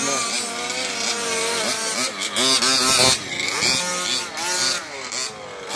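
Gas-powered HPI Baja 1/5-scale RC truck's small two-stroke engine revving, its pitch rising and falling over and over as it is driven, easing off briefly a few times.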